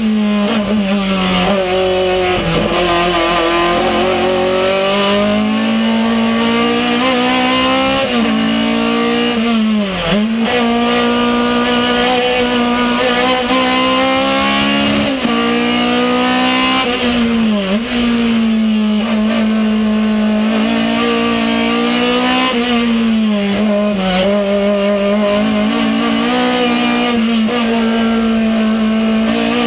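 Skoda hillclimb race car engine, heard from inside the cockpit, revving hard and held high. Its pitch drops sharply at each gearshift or lift, several times, then climbs again.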